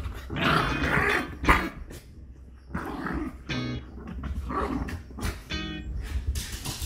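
A Pembroke Welsh corgi and an American Eskimo dog play-fighting: growling and snarling with a few short barks, over background music.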